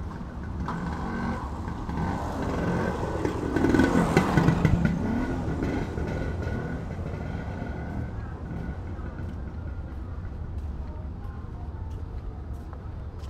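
Street traffic: a motor vehicle passes close by, growing louder to a peak about four seconds in and then fading, over a steady low rumble of traffic.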